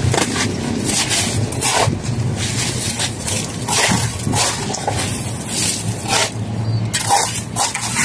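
Steel trowels and hands scraping and spreading cement mortar over the top of concrete hollow blocks, in a string of short, irregular scrapes, over a steady low hum.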